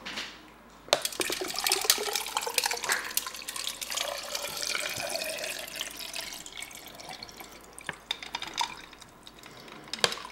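Water poured from a plastic bottle into a stainless-steel tumbler. The splashing pour starts about a second in, is loudest over the next few seconds, and tapers off after about eight seconds, with a couple of small clicks near the end.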